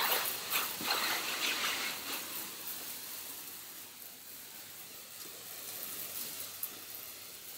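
Water hissing from a garden hose spray nozzle onto a concrete floor, wetting the surface. Louder and more uneven for the first two seconds, then a steadier, quieter spray.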